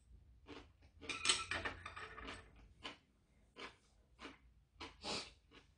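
A person eating a mouthful of soondae soup off chopsticks: a short slurp about a second in, then a run of wet chewing smacks.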